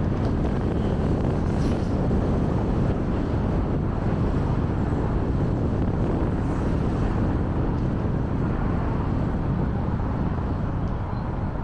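Steady low rumble of a car driving: road and engine noise at an even level.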